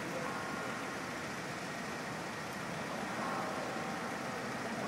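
Aerial lift truck's engine idling steadily.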